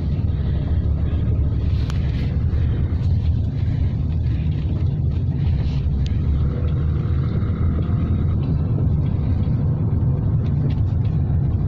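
A steady low rumble with a few faint clicks over it.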